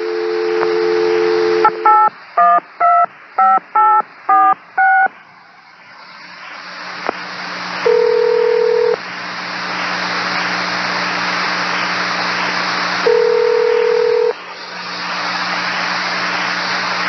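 Railroad radio channel heard over a scanner. A steady two-note tone at the start is followed by a quick string of about seven touch-tone (DTMF) beeps. Then comes static hiss, broken by a single steady beep about every five seconds.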